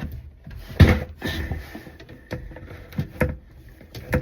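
Irregular knocks and clunks under a kitchen sink as the drain trap is worked loose by hand, the loudest about a second in.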